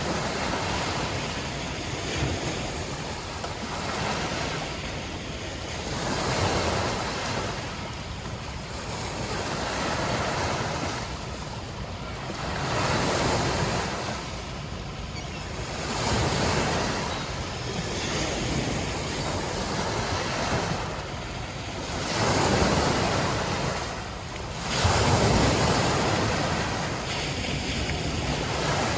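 Gentle waves lapping and washing in, a steady rush of water that swells and falls back every three to four seconds, with the strongest surges a little past the middle and near the end.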